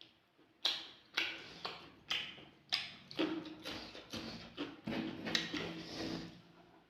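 Close-miked eating sounds: chewing with wet mouth smacks and clicks, about two a second.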